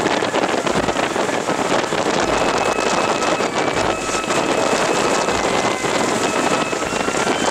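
Strong wind buffeting the camera microphone, a loud continuous rushing with gusts, with faint held musical tones beneath it.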